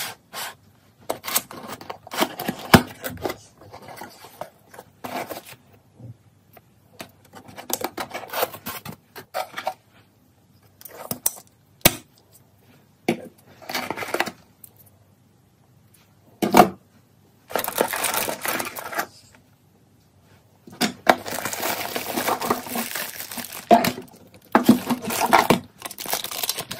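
Plastic bags and cardboard packaging handled while unboxing a soldering station: irregular crinkling and rustling of plastic wrap, with sharp clicks and knocks as parts and box flaps are moved. The crinkling runs longer at about 17 seconds in and again from about 21 seconds until near the end.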